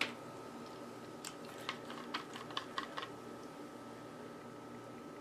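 A quick run of light clicks and taps, about eight in two seconds, of a stir stick knocking and scraping inside a plastic cup of acrylic paint.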